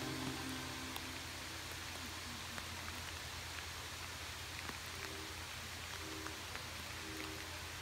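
Steady rainfall, an even hiss with scattered faint drop ticks. Faint short musical notes come in from about five seconds in as the song's music resumes.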